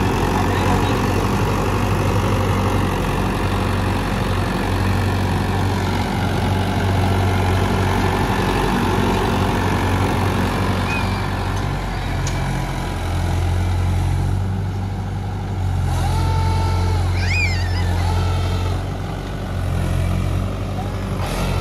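Mahindra 415 DI tractor's diesel engine running steadily under load as the tractor drives through loose soil, its low hum swelling and easing in stretches during the second half.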